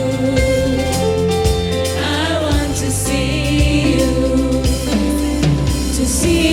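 Christian worship song with voices singing over a band with a drum kit and a sustained bass line.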